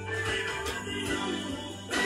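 Music playing from a vinyl record on a Pioneer PL-300X direct-drive turntable.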